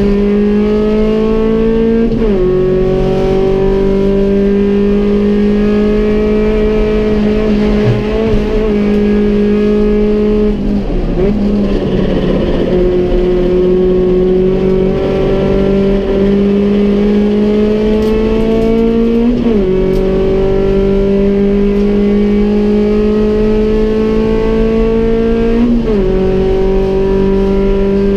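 Metro-based race car's four-cylinder engine running hard, heard from inside the cabin. Its pitch climbs slowly and drops sharply at gear changes about two seconds in and twice near the end, with a lift and lower, rougher running around the middle before it pulls up again.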